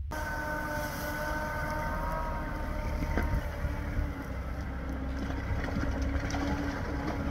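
Off-road vehicle engine running steadily with a low rumble, with a faint high whine that fades out about three seconds in.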